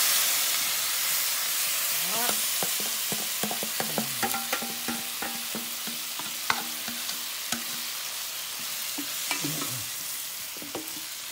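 Marinated beef chunks sizzling as they hit hot butter in a pot, being seared so the meat firms up; the sizzle is loudest at first and slowly eases. A wooden spatula clicks and scrapes against the metal bowl and the pot as the meat is scraped in and stirred.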